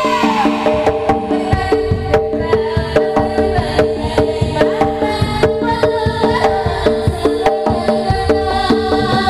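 Live Javanese jaranan ensemble music: drums beat a fast, driving rhythm over steadily repeating pitched gong-chime notes and a held tone.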